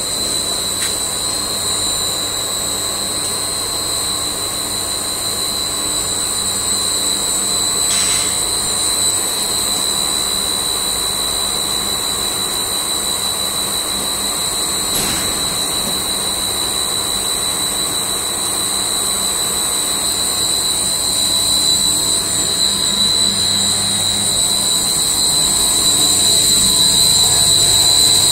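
Plastic blown-film extrusion machine running: a steady machine drone with a constant high-pitched whine over a low hum.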